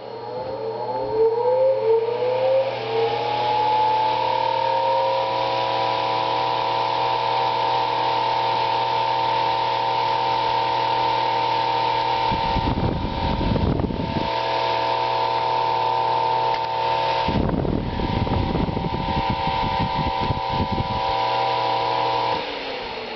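Vintage Eskimo electric table fan motor spinning up after being plugged in, its whine rising over the first few seconds and then holding steady over a low electrical hum, with rough noise from dry bearings that need oiling. Twice in the middle it is overlaid by stretches of louder rattling noise, and near the end the power is cut and it starts to coast down.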